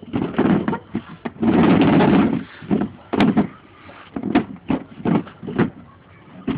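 Plastic chair legs scraping on a concrete floor as a baby pushes the chair along in short jerky drags, one longer drag about two seconds in, the scrapes growing shorter and fainter toward the end.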